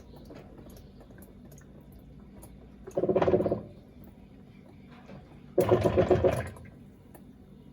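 Electrolux LAC16 top-loading washing machine agitating in short strokes, twice, each under a second and pulsing rapidly as the motor turns the agitator and water sloshes, with a quiet water trickle between strokes.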